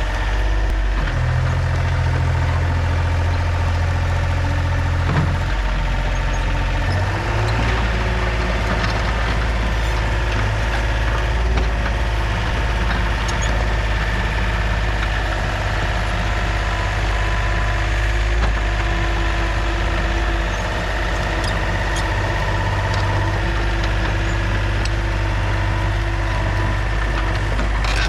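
Diesel engine of a John Deere 30 compact excavator (a Yanmar-built machine) running steadily, its note shifting about one second in and again around five and seven seconds in.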